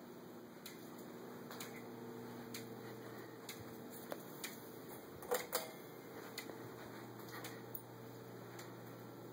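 Ceiling fan running with a steady low hum, with irregular light clicks and taps over it, the two loudest close together about five and a half seconds in.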